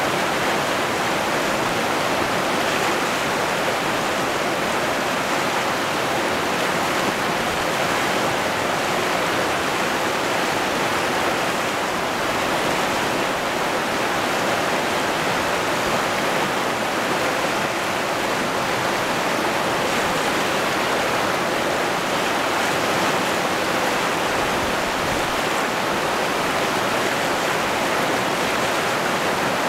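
River rapids: fast water rushing over and around boulders, a steady, even rush with no breaks.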